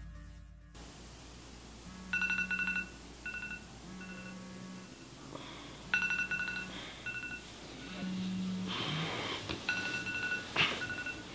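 A mobile phone going off: short high beeps in a repeating ringtone pattern, with separate pulses of a low vibrating buzz in between.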